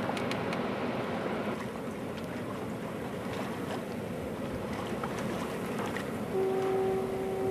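Wind and water rushing steadily past a sailboat under way, with a few faint clicks. A steady, even-pitched tone sounds for the last second or so.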